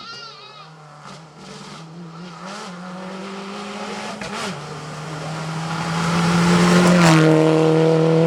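Rally car engine at high revs coming closer on the stage, growing steadily louder, then passing with a drop in pitch about seven seconds in. A goat bleats briefly at the very start.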